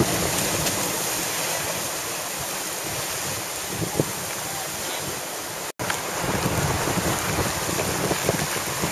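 Hurricane-driven ocean surf breaking and rushing, with heavy wind buffeting the microphone. The sound drops out for an instant just past the middle.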